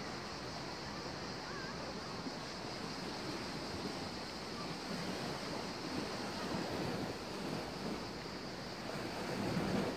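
Sea waves washing against a rocky shore, a steady rush that swells a little near the end, with wind on the microphone.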